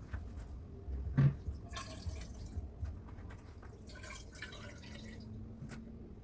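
Scattered clicks, knocks and short wiping scrapes from cleaning the inside of a thawed-out fridge, with one louder knock about a second in.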